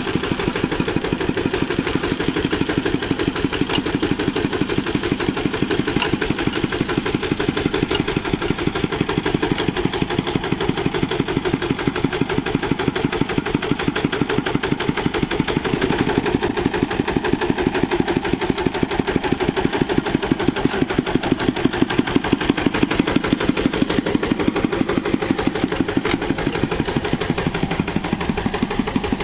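Two-wheel rotary hand tractor's single-cylinder diesel engine chugging steadily under load, a fast even beat of exhaust pulses, as its rotary tines churn through grass and debris.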